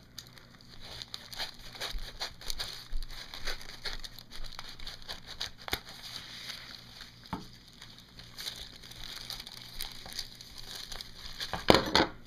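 Wax paper crinkling and rustling as it is folded and creased by hand, in many small irregular crackles, with a louder rustle near the end.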